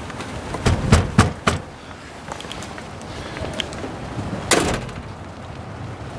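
Car trunk lid and latch being worked by hand: a few sharp knocks and clicks about a second in, then one louder, noisier clunk past the four-second mark. The lid has bent hinges and will not latch closed.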